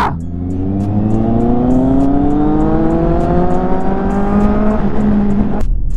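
Kawasaki inline-four motorcycle engine accelerating through a gear, its pitch climbing steadily for about four and a half seconds, then holding level; the sound cuts off suddenly near the end.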